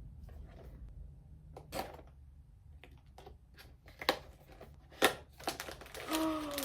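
Blind-box packaging being handled and torn open: scattered crackles and sharp clicks, the loudest two about four and five seconds in. A short exclaimed voice comes in near the end.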